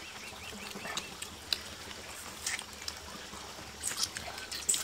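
Steady trickle of flowing water, with scattered light clicks and taps over it and the sharpest click near the end.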